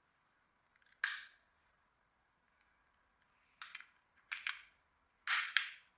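Small plastic clicks and snaps from handling a fridge thermometer's battery cover and battery insulating tab: one click about a second in, then a few more close together near the end.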